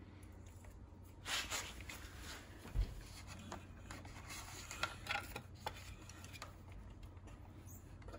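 Hands working a brake cable housing and its silicone protector at an electric scooter's stem: faint rubbing and rustling, a soft thump about three seconds in, and a few light clicks.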